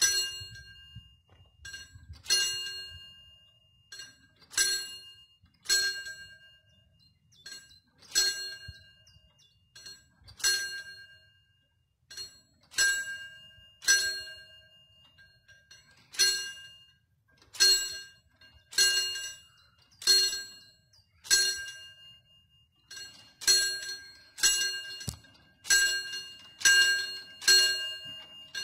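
Pre-warning bell of a mechanical level-crossing barrier ringing with single, ringing strikes about once a second, coming faster in the last few seconds: the warning that the barriers are about to be lowered for an approaching train.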